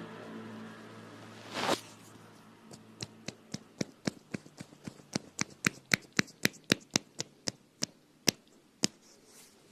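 A brief swish, then a run of sharp taps, about four a second, loudest in the middle of the run before they thin out.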